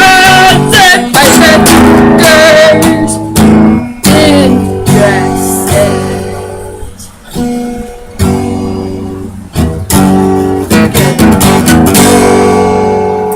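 Acoustic guitar strummed in irregular chords, each ringing out and fading before the next strum.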